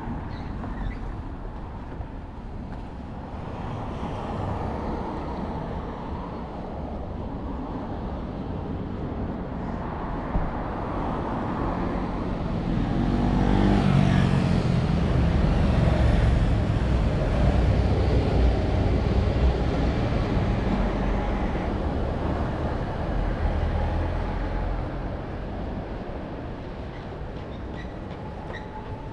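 City traffic with a motor vehicle passing close by: its sound builds from about ten seconds in, is loudest around the middle, then fades away.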